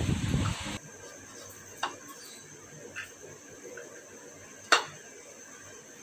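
A few sharp taps and clicks of a bowl and soaked chana dal (split chickpeas) against a plastic mesh basket as the dal is tipped out to dry; two light ones, then a louder tap near the end, over a faint hiss.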